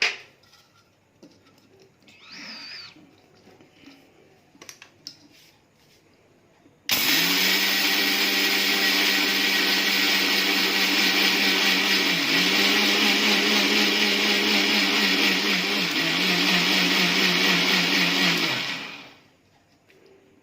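Electric mixer grinder grinding sugar into powder: the motor starts suddenly about seven seconds in, runs loud and steady for about eleven seconds with two brief dips in speed, then winds down. Before it starts there are a few faint knocks.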